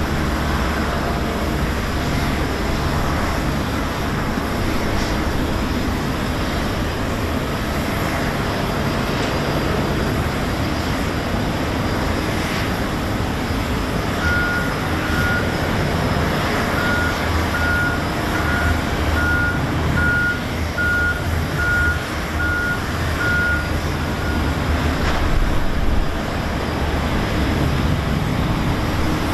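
Steady low rumble of jet aircraft taxiing at an airport, an Airbus A330-343 among them. About halfway through, a ground vehicle's reversing beeper sounds about once a second for roughly ten seconds.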